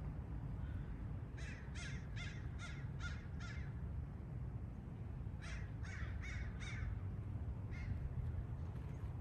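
A bird calling in quick repeated calls: six in a row, a pause, four more, then a single call, over a steady low rumble.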